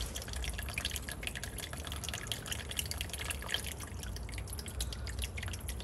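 Engine coolant dripping from the radiator drain and several other points into plastic drain pans, many quick irregular drops. The cooling system is being drained.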